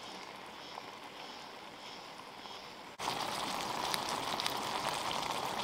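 A pot of pasta boiling hard on a small gas canister stove: a steady hissing, bubbling rush that comes in suddenly about three seconds in. Before that, a quieter, even outdoor background.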